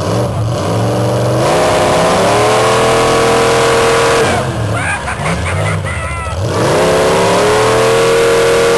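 Lifted pickup truck's engine revving hard and held at high revs while straining against the other truck in a truck tug-of-war. The pitch climbs about a second and a half in, falls away for a couple of seconds around the middle, then climbs again near seven seconds and holds.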